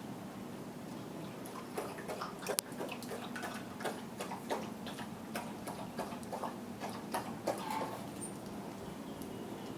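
Alaskan malamute lapping water, a run of wet clicking laps about two a second that starts about two seconds in and stops near the end.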